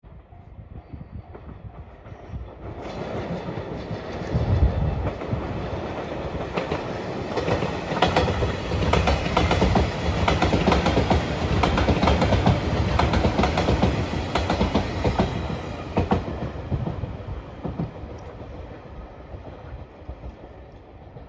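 Electric limited express train passing close by, its wheels clicking over the rail joints; it builds up from about three seconds in, is loudest in the middle and fades away near the end.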